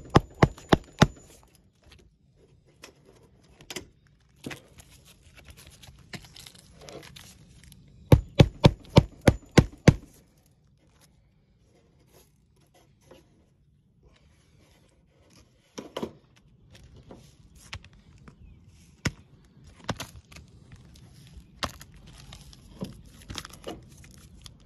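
Claw hammer striking at an asphalt shingle roof in quick runs of sharp knocks: about five at the start, about ten together around eight seconds in, then single blows, with shingles scraping and rustling between.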